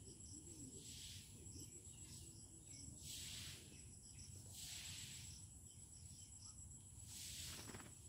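Faint, steady high-pitched trill of crickets, with soft swells of hiss every second or two.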